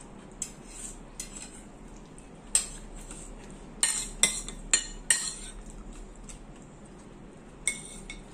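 Spoon and fork clinking and scraping against a metal bowl and plates while eating: irregular sharp clinks, thickest about four to five seconds in.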